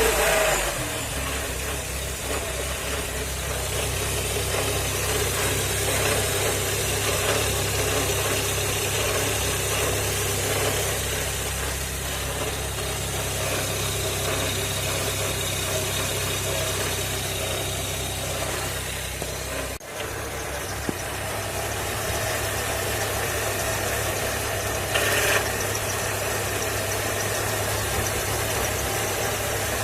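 Volkswagen Golf Mk3 engine idling steadily with a hum: the owner cannot place it and wonders whether it comes from the belt rollers, though the crunching heard earlier is not there now.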